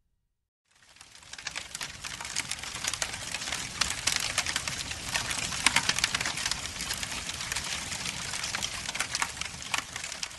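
A fire crackling: a dense run of pops and snaps over a steady rushing hiss, fading in about a second in.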